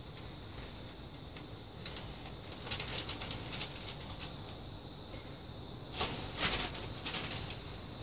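Sheet of baking paper rustling and crinkling as it is dragged across wet acrylic pour paint and peeled away, with clusters of small crackles about three seconds in and again about six seconds in.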